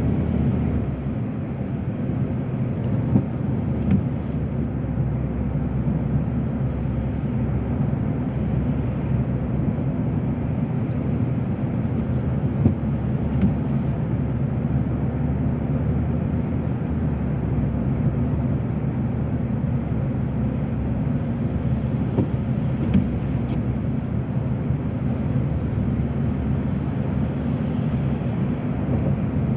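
Steady road and engine rumble heard inside a moving car's cabin, with a few faint scattered clicks.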